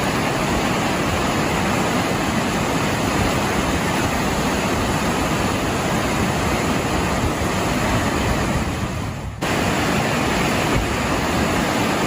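Heavy rain pouring down in a steady, dense rush. It fades briefly about nine seconds in, then cuts back in abruptly.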